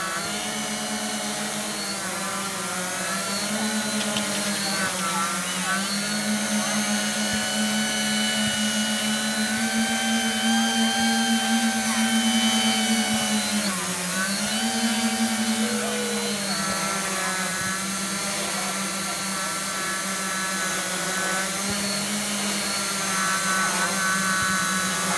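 Hexacopter's six brushless motors driving 11x5-inch props in a low hover, a steady buzzing hum whose pitch wavers up and down as the flight controller adjusts the motor speeds. The pitch dips briefly and climbs back about halfway through.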